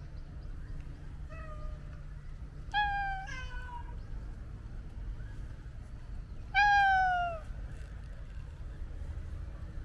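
Domestic cat meowing four times: a soft meow about a second in, two quick meows around three seconds, and a louder, longer meow near seven seconds, each falling in pitch.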